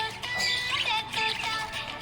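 Background music with held notes, over which a small parrot gives a few short, high chirps.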